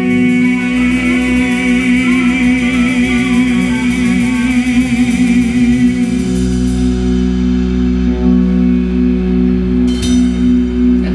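Live blues-rock band holding out a song's final chord: electric guitar sustaining a note with a wavering vibrato over a steady bass, with cymbals rolling until a little past halfway, then a sharp crash near the end.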